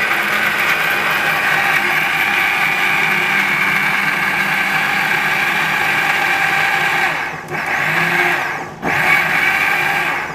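Miyako 3-in-1 mixer grinder with a 750-watt motor running at speed, its stainless jar grinding ginger, onion and garlic with a little water into paste. The sound dips briefly twice in the last few seconds, then cuts off as it is switched off at the end.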